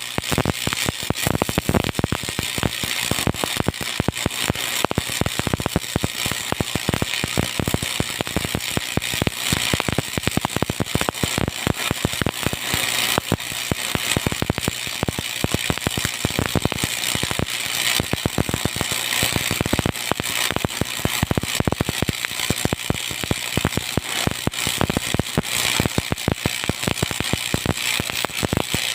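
Electric arc welding in the overhead position: the arc crackles steadily and densely, without a break.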